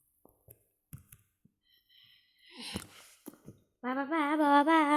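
Near silence with a few faint clicks, then a breathy sound about halfway through. Near the end a person's voice comes in, holding a wavering, slightly bending note.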